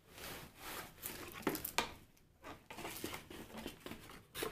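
Cardboard box and paper leaflet rustling and crinkling as they are handled and pulled out of the packaging, in irregular rustles with the loudest near the middle and just before the end.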